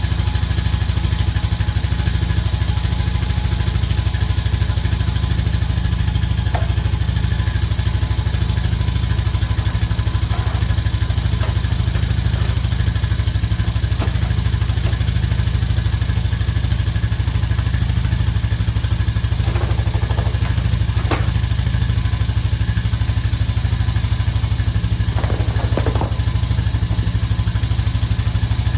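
Honda Foreman TRX500 ATV's single-cylinder engine idling steadily, with no revving. The engine now starts and runs after the no-crank fault has been fixed.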